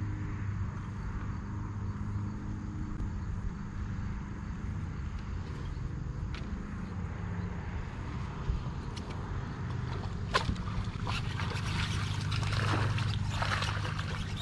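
Steady low hum of a bass boat's electric trolling motor. In the last few seconds, sharp clicks and splashing come in as a bass is hooked and thrashes at the surface.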